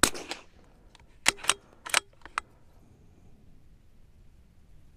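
A .22LR precision rifle with a Shilen barrel fires one shot at the start, with a short echo trailing off. About one to two and a half seconds in, the bolt is worked in four quick metal clicks, chambering the next round.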